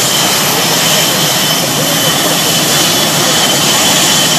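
Jet engines of Blue Angels F/A-18 Hornets taxiing, their twin General Electric F404 turbofans giving a loud, steady rush with a high whine held at a constant pitch.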